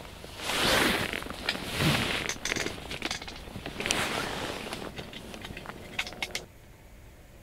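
Rustling with many light clinks and clicks, as of small objects being handled, lasting about six seconds and then stopping abruptly.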